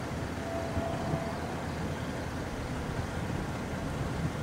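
Steady low rumble of a car engine idling, heard from inside the cabin, with a faint high steady tone held for about a second near the start.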